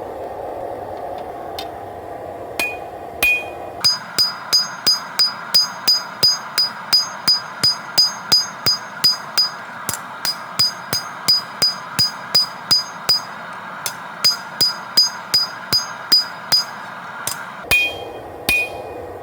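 Hand hammer striking a hot W-2 steel knife blade on an anvil: a few single blows, then a fast even run of about three ringing strikes a second, then a few more blows near the end, over a steady background hiss. The blows are forging in the edge bevel, which draws the counter-curved blade straight.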